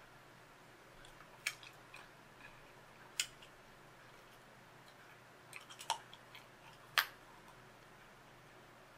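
Bubble gum being chewed with the mouth open: a few sharp, wet smacks and clicks spaced a second or two apart, a quick cluster about six seconds in and the loudest about seven seconds in.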